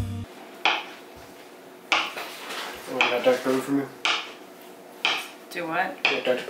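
Kitchen knife cutting through a block of cheese and knocking down onto a plastic cutting board, about once a second at first, then quicker near the end.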